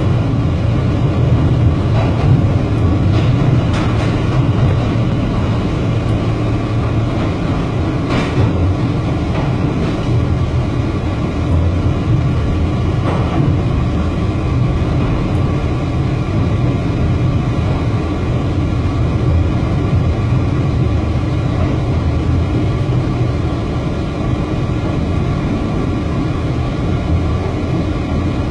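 NYC subway F train running through a tunnel, heard from on board: a steady, loud rumble of wheels on track, with a few sharp clicks in the first ten seconds.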